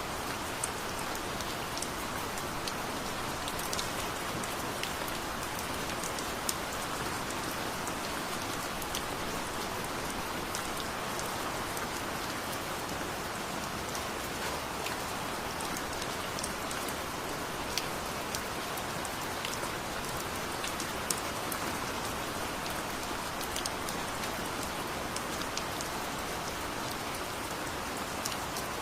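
Steady rain falling, with scattered sharp drop ticks through an even hiss.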